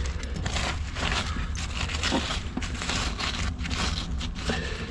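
Debris being pulled and scraped out of a car trunk by hand: irregular rustling, scraping and crunching over a steady low hum.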